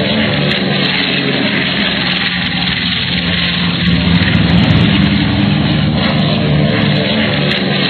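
Helicopter sound effect: a loud, steady engine and rotor drone.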